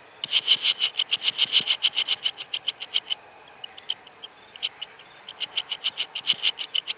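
Locust sound effect: a fast run of high chirping pulses, about seven a second. It thins to a few scattered chirps for about a second and a half midway, then picks up again.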